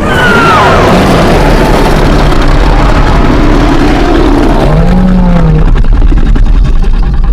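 Kraken creature sound effect: a loud, deep, noisy monster roar with a few gliding cries layered in, one falling near the start and another bending up and down about five seconds in.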